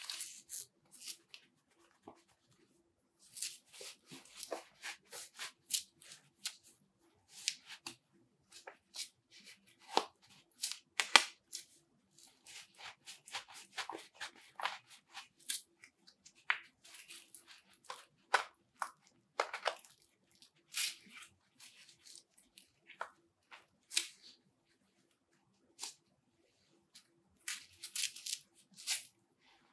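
Nike Vapor Grip 3 goalkeeper gloves being handled and pulled on: irregular rustles of latex palm and knit backhand, with the hook-and-loop wrist strap ripping open and pressing shut several times.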